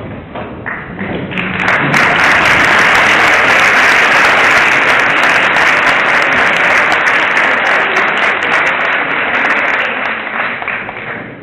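Audience applauding: a dense patter of clapping that swells over the first couple of seconds, holds loud, and dies away near the end.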